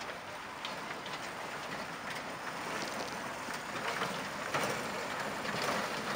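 Truck and trailer wheels ploughing through icy water and broken ice: a steady splashing, hissing rush with many scattered cracks and knocks of ice chunks, growing a little louder.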